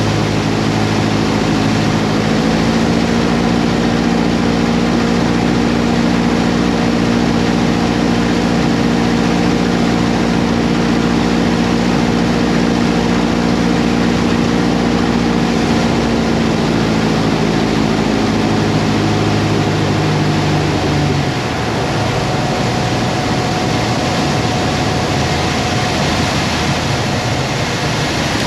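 Avid Flyer light aircraft's engine and propeller running at a steady note under loud rushing air. About two-thirds of the way through, the engine note drops away, leaving mostly the rush of air.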